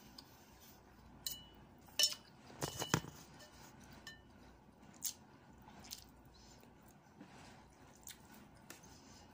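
A plate clinking a few times, sharp clicks with a brief ring bunched about one to three seconds in and one more near the middle, as food is eaten by hand from it. Soft eating and chewing sounds in between.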